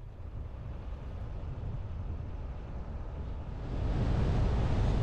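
A vehicle driving on a paved road: steady road and wind noise with a low rumble, growing louder about three and a half seconds in.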